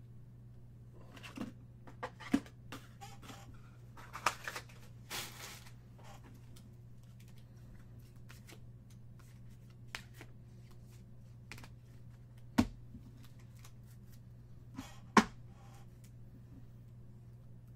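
Baseball trading cards being handled and sorted by hand: cards sliding and rustling against each other, with scattered sharp taps and clicks as cards and stacks are set down on the table, the loudest two near the end. A steady low hum runs underneath.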